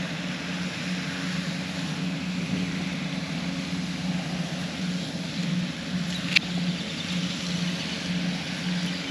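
A steady, low motor drone under a constant rushing of wind noise, with one sharp click about six seconds in.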